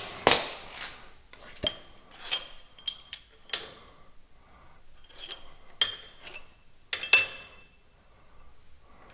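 Steel bolts and hand tools clinking against metal, about a dozen sharp ringing clinks spread over several seconds, with light rubbing between them.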